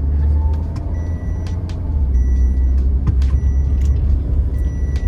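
Steady low rumble of a moving road vehicle heard from on board, with short high beeps repeating about once a second.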